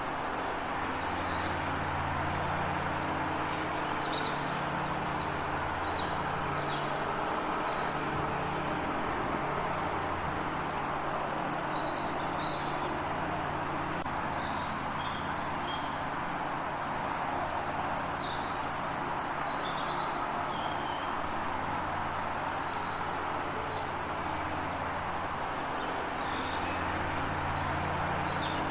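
Small birds chirping and tweeting in short scattered calls over a steady background rumble with a low hum.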